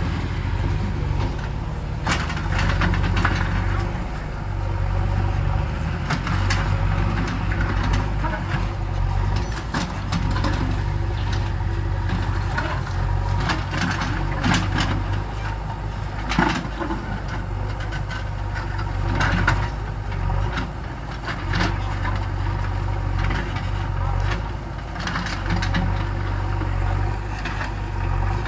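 Diesel engine of a JCB 3DX backhoe loader running steadily, with scattered sharp knocks and clanks across it.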